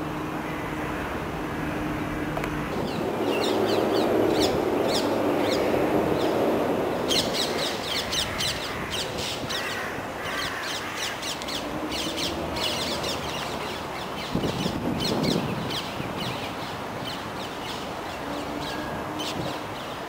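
Birds calling, a rapid, dense series of short high chirps that starts about three seconds in and is busiest from about seven seconds on, over a steady low background noise. A faint low hum fades out in the first few seconds.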